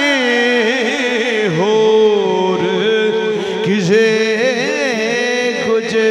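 A man singing Punjabi Sufi kalam, holding out a long wordless vowel that he ornaments with pitch slides and wavering turns.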